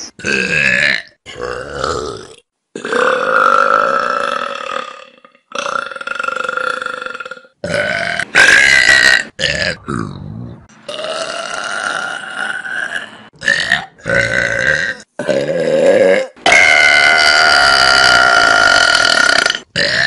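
Loud, drawn-out burps from several different people, about a dozen, cut one after another with abrupt breaks between them. The longest, held for about three seconds, comes near the end.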